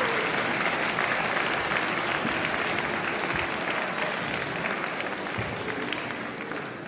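Concert audience applauding, with dense clapping that starts to die away near the end.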